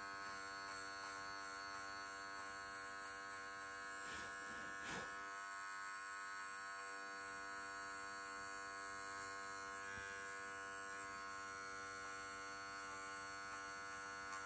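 Wahl Bravura cordless clipper with its 5-in-1 blade on the 40 setting, running with a steady buzz as it edges the hair along a dog's ear.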